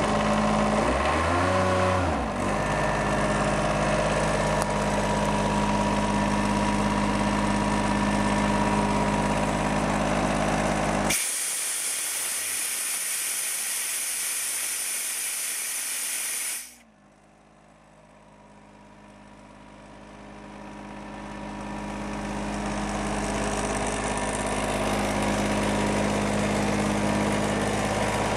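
Denyo DPS-50SS diesel engine-driven screw air compressor running steadily just after start-up. About eleven seconds in, compressed air blasts out of the opened discharge valve in a loud, even hiss for about five seconds, then cuts off suddenly while the engine keeps running.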